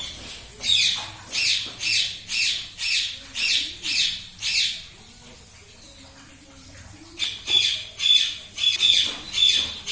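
Indian ringneck parrot squawking: a run of sharp, high calls at about two a second, a pause of a couple of seconds, then another run of calls near the end.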